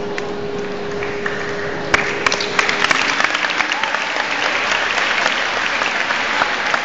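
Crowd noise echoing in a large hall with a steady tone under it, then a crowd bursting into applause about two seconds in, many hands clapping over cheering.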